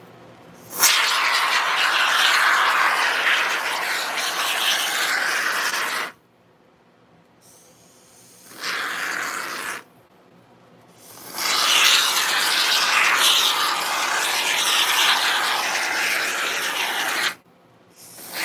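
Aerosol can of expanding spray-foam sealant hissing as foam is dispensed through its straw nozzle: two long sprays of about five and six seconds, a short burst between them, and a brief one at the end.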